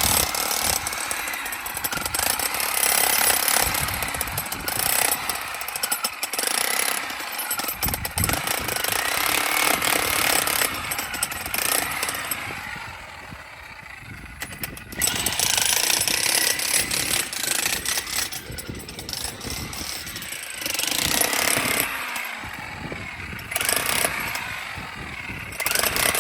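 Hilti electric demolition hammer chipping into masonry, a dense rapid hammering that eases off for a couple of seconds about halfway through, then starts again.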